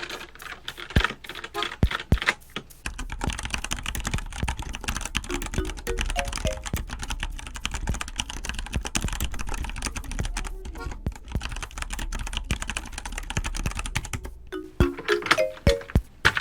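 Typing on a mechanical keyboard: sparse keystrokes at first, then a fast, dense run of clicking from about three seconds in to about fourteen, slowing again near the end. Light background music with a few short notes plays under it.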